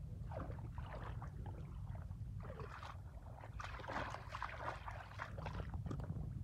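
Bare feet wading through shallow muddy water, the water sloshing and splashing irregularly, over a steady low rumble.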